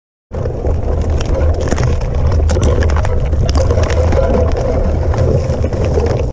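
Riding a fat bike over a rough grassy track with the camera's own microphone recording: heavy wind rumble on the mic, a steady hum, and scattered rattles and knocks as the bike goes over bumps.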